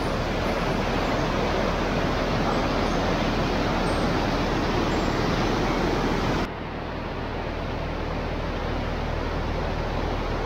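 Bhagirathi river (the upper Ganges) rushing, a steady noise of fast-flowing water. It drops in level and loses its hiss suddenly about six and a half seconds in.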